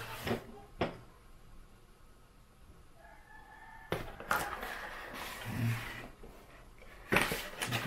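Cardboard handling noise: a couple of light knocks, then the paper insert tray rubbing and scraping against the walls of the drone's box as it is worked loose. The scraping is loudest near the end.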